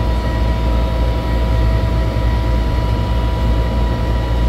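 Steady low drone of running machine-shop machinery, with a thin steady whine riding over it.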